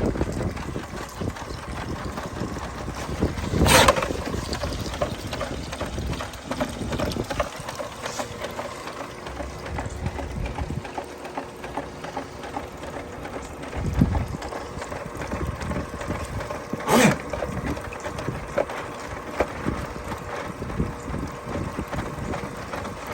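Motorized sewer drain snake running steadily, feeding its cable into a blocked sewer line. Two loud sharp knocks stand out, a few seconds in and again about two-thirds of the way through.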